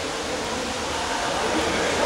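Steady, echoing noise of an indoor swimming-pool hall with faint voices mixed in, growing a little louder toward the end.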